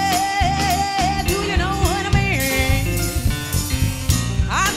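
Recorded music: a long held melody note with a slight waver over bass and drums, moving into a quick rising phrase near the end.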